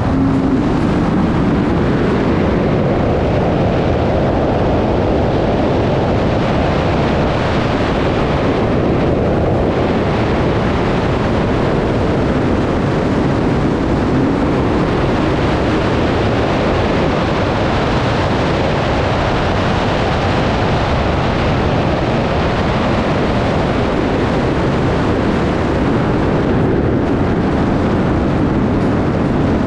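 Modified Yamaha FX Cruiser SVHO jet ski's supercharged engine held at wide open throttle, about 9400 rpm on roughly 21.5 psi of boost, pulling hard as the craft gathers speed. The engine blends with wind rushing past into one loud, steady roar.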